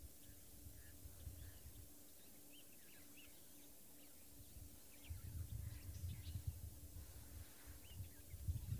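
Faint birds calling, with short chirps scattered throughout, over a low rumble that grows about five seconds in.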